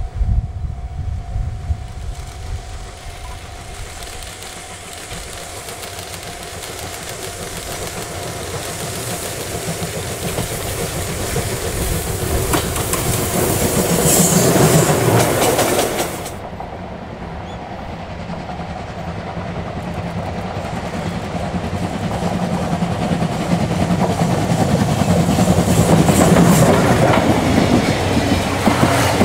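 Steam-hauled train led by the C57 180 passing by, its wheels clattering rhythmically over the rail joints. The clatter builds to a peak, breaks off abruptly about halfway through, then builds again.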